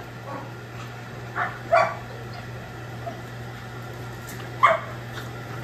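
A dog barking: two quick barks about a second and a half in, then another near the end.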